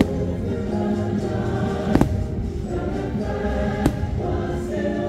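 Choral music from the fireworks show's soundtrack, with a choir singing steadily. Two sharp firework bangs cut through it, about two seconds in and again just before four seconds.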